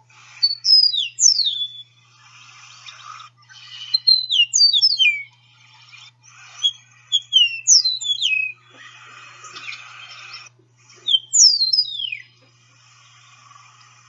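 Eastern meadowlark singing: four songs of clear, slurred whistled notes that mostly fall in pitch, each about a second and a half long and a few seconds apart, the phrase rendered "spring-is-fin-all-y here".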